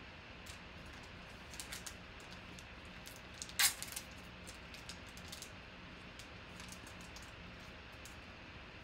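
Light plastic clicks and taps from handling a clear magnetic one-touch card holder, with one brief louder rasp of plastic about three and a half seconds in.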